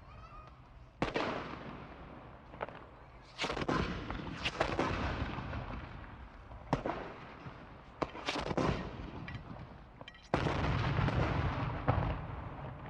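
Rifle shots at a firing range, going off at irregular intervals and sometimes overlapping, each with a rolling echo; a louder, dense run of shots comes about ten seconds in.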